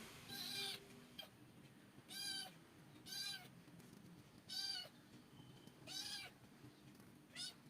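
A cat meowing repeatedly: about six short, high meows, each rising and falling in pitch, a little over a second apart.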